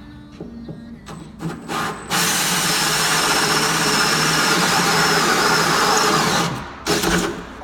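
Power drill boring through a door with a hole saw: a few short blips of the trigger, then one steady cut of about four and a half seconds with a high motor whine, and a last short burst near the end.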